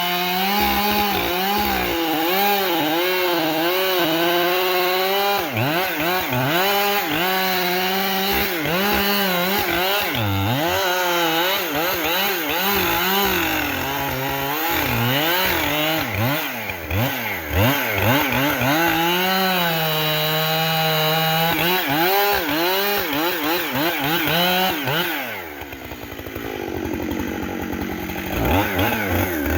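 Chainsaw cutting into a tree, its engine pitch wavering up and down as the chain bogs and frees in the wood. About 25 seconds in the saw drops back to a lower, quieter speed, then revs up again near the end.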